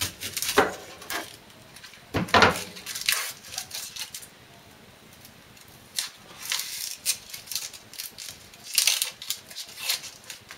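A kitchen knife cuts through an onion and knocks on a plastic cutting board a few times in the first two to three seconds, the loudest knock about two seconds in. After that comes the crisp crackle and rustle of dry onion skin being peeled off by hand.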